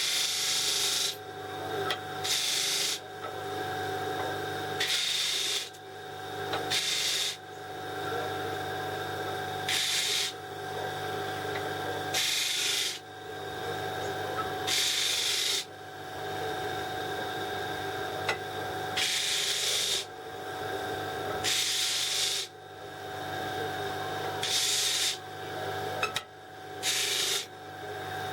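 Wood lathe running steadily while a tool is drawn against the spinning banksia pod blank in about a dozen short, hissing passes a couple of seconds apart, truing up the edge that was repaired with CA glue.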